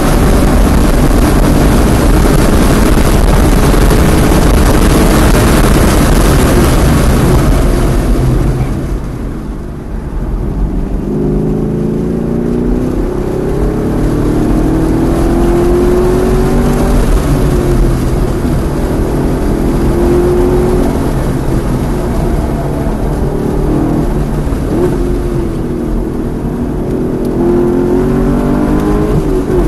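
Chevrolet Camaro SS 1LE's V8 heard from inside the cabin on a track lap. It runs hard at high speed under heavy wind and road noise, the revs fall away under braking about a third of the way in, and then the engine pulls back up through the corners with its pitch rising and falling.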